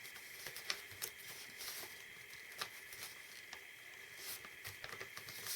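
Sheet of paper being handled and creased by hand: scattered light clicks and soft rustles over a faint steady background hiss.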